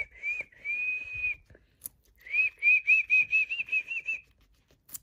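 Guinea pig wheeking, the whistling call guinea pigs make when they want food. A few short high whistles, one longer held whistle about a second in, then a quick run of about ten short whistles between about two and four seconds in.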